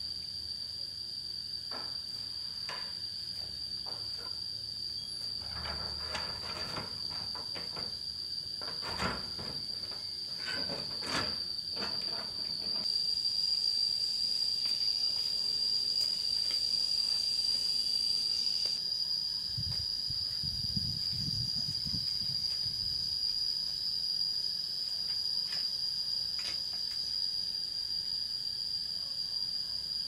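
Insects trilling in one steady high-pitched note, with scattered clicks and knocks in the middle.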